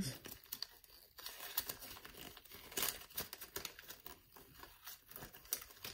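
A paper instruction sheet rustling and crinkling as it is handled and unfolded, in scattered short rustles and clicks.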